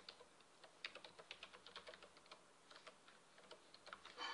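Faint computer keyboard typing: a run of irregular keystroke clicks.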